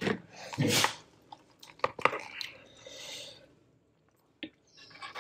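Wooden chopsticks working instant noodles in a paper cup: a handful of light clicks and a short rustling stir, with a little chewing.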